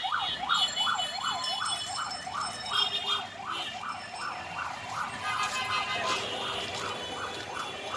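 An electronic siren yelping, its pitch sweeping rapidly up and down about three times a second.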